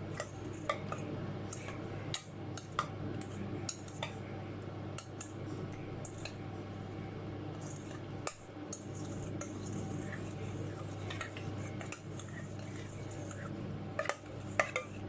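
Irregular light clinks and clicks of a utensil against a bowl and dishes while marinating chicken wings are mixed, with a few louder clinks near the end, over a steady low hum.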